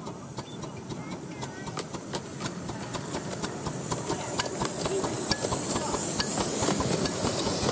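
Miniature SR 'Atlantic' 4-4-2 steam locomotive approaching and passing with its passenger train, growing louder: irregular clicks of the wheels over the track, with steam hiss rising strongly near the end.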